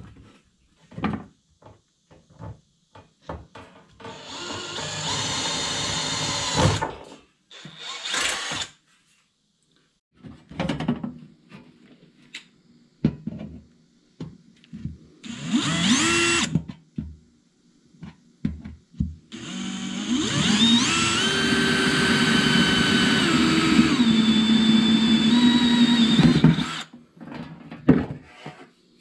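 Power drill with a twist bit boring holes through a thin sheet-metal strip. There is a run of about three seconds, a brief spin-up halfway through, and a longer run of about seven seconds in the second half, with knocks from handling the metal in between.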